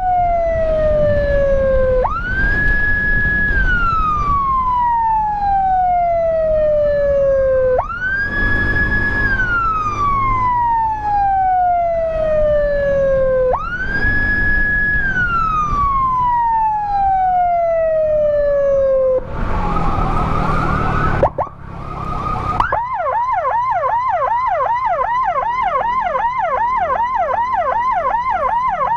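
Electronic emergency-vehicle siren running a slow wail: three long cycles, each jumping up to a high pitch, holding briefly, then sliding down slowly over several seconds. About two-thirds through comes a short burst of noise, and the siren switches to a rapid yelp, several quick up-and-down sweeps a second.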